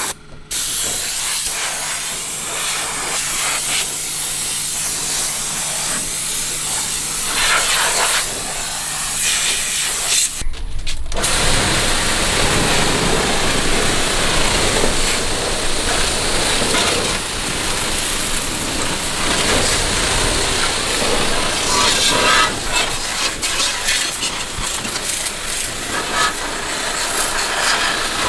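High-pressure water jet hissing from a hose nozzle and splashing against a scooter's body panels and front wheel. It breaks off briefly twice, near the start and about a third of the way in, and comes back fuller and louder after the second break.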